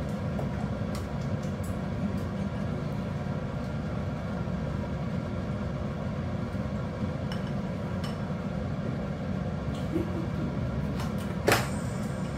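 Large stockpot of chicken broth boiling on an electric cooktop: a steady low rumble with scattered small pops. A sharp clink comes about eleven and a half seconds in.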